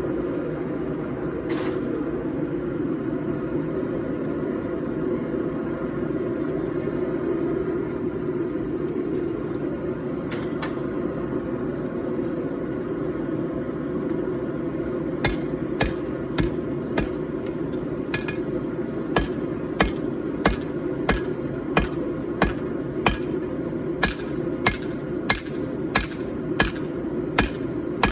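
Gas forge burner running with a steady rushing noise. About halfway through, hammer blows on the hot steel begin, about two strikes a second, which continue to the end.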